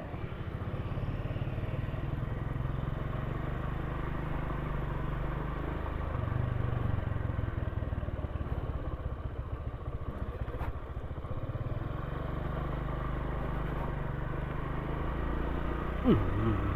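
Motorcycle engine running steadily while riding, a low exhaust note whose pitch shifts slightly a few times. A brief falling tone sounds near the end.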